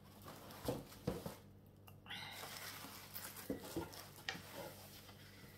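Faint handling sounds: soft rustling of paper and cardboard with a few light taps as objects are moved on a table.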